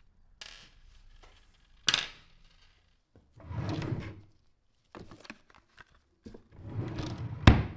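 A workshop drawer being opened and rummaged through: knocks and clicks, stretches of rustling as packets and cloths are shifted, and a hard knock near the end.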